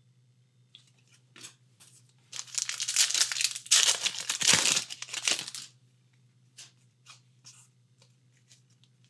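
A trading-card pack wrapper is torn open and crinkled, with a ripping, crinkling noise lasting about three seconds in the middle. A few light handling clicks come before and after it.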